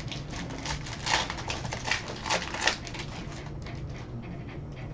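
Stiff football trading cards being flipped and slid against one another by hand: a quick run of soft clicks and rustles, busiest in the middle.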